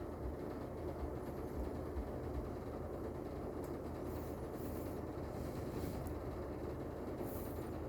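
Steady low background rumble, with a few faint brief rustles of wire being handled as the twisted pairs of a Cat 6 cable are separated by hand.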